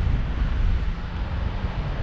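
Wind noise from the airflow buffeting the camera microphone of a paraglider in gliding flight, a steady low rush with no other distinct sound.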